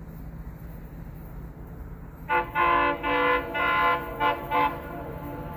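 Train air horn sounded in a quick series of about six blasts, some short and some longer, over a low steady hum.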